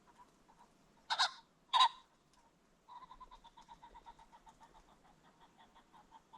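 Male ring-necked pheasant crowing: two loud, harsh notes about half a second apart, starting a second in. From about three seconds in, a quieter rapid series of short pulsed notes follows, several a second.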